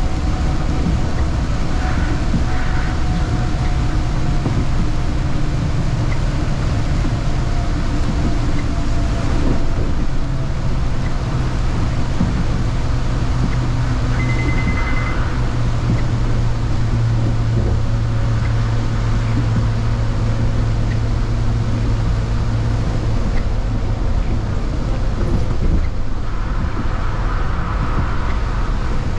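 City bus driving along, heard from inside: a steady engine drone over road and tyre rumble, with a brief high beep about halfway through.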